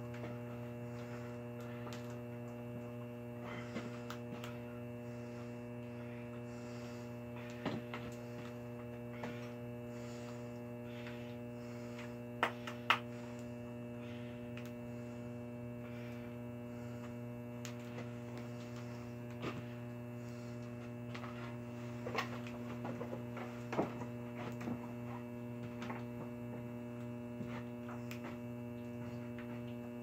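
Old electric air-conditioner compressor running with a steady electrical hum, so hot that it is smoking. Scattered sharp clicks sound over the hum, the two loudest about twelve seconds in.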